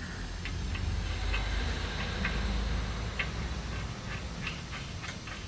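Light, irregular metallic clicks and ticks as a washer and large hub nut are fitted and turned on by hand onto a rear wheel hub.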